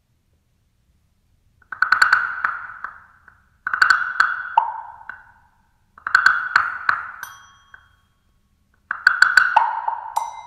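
Wooden blocks struck with sticks in four short flurries of rapid strokes, each one dying away, moving between a higher-pitched block and a lower-pitched one; the last flurry, about nine seconds in, settles on the lower block.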